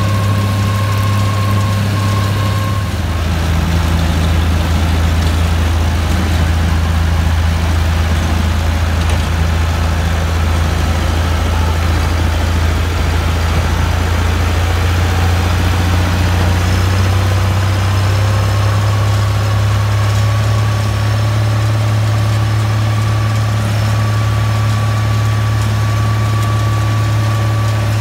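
Massey Ferguson 385's four-cylinder diesel engine running steadily under load while driving a PTO-powered Cel Mak silage harvester cutting berseem. The engine's pitch dips a little about three seconds in and climbs back later.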